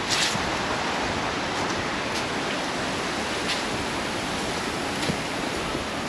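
Steady, even hiss of outdoor background noise, with a few faint ticks scattered through it.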